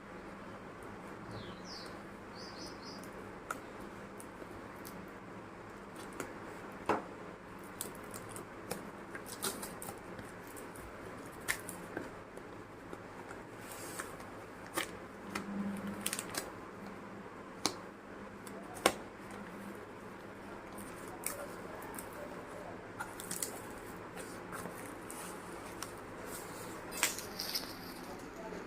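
Packaging being handled and opened by hand: scattered sharp clicks, taps and short rustles over a steady low hiss.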